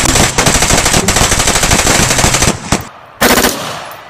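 Automatic gunfire: one long rapid burst of about two and a half seconds, a couple of single shots, then a second short burst near the end.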